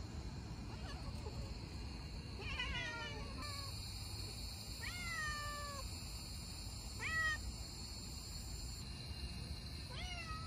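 Feral domestic cat meowing four times, short calls a couple of seconds apart that each slide down in pitch; the call about seven seconds in is the loudest.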